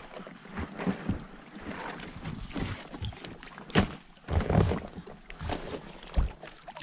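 Fighting a hooked bass from a boat: irregular knocks and splashy water noise as the fish thrashes near the surface and the angler reels it in, with one sharp knock a little under four seconds in.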